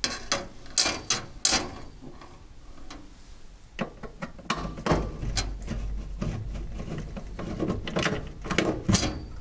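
Screws being taken out of the sheet-metal housing of a furnace combustion air blower (inducer) motor: scattered sharp metallic clicks and rattles of the screws and housing being handled, a quick run of them at the start and more from about four seconds in.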